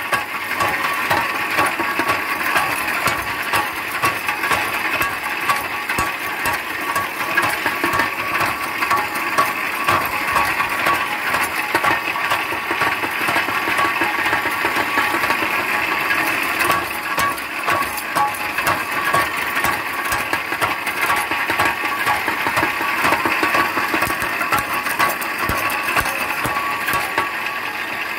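Homemade guillotine-type branch shredder running: its knives shear together like a pruning shear, chopping leaves and green stems in a steady, rapid mechanical clatter. Under the clatter is the steady whine of its chain and reduction-gear drive.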